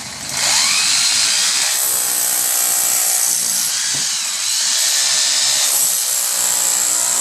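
A handheld power tool starts just after the beginning and runs steadily under load, working the mortar out around a bottom brick of a brick pier.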